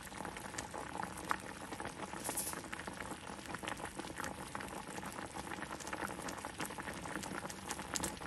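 Brown sugar and water syrup boiling hard around sliced plantains in a pot: steady bubbling with many small pops.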